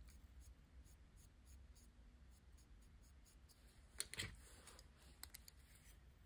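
Foam-tipped swab rubbing over a small chip on a circuit board, faint repeated scratchy strokes, to clean dust off its markings. About four seconds in, a louder click and rustle of handling, then a few light ticks.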